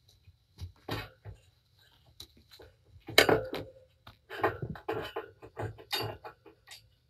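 Cats playing: irregular scuffling, scratching and knocking, with a few louder bumps, the loudest about three seconds in. About six seconds in, fur brushes right against the microphone.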